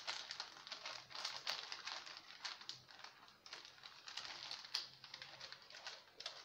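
Parchment paper and a damp cotton kitchen towel rustling and crinkling in irregular bursts as they are smoothed over and rolled up with a warm génoise sponge sheet.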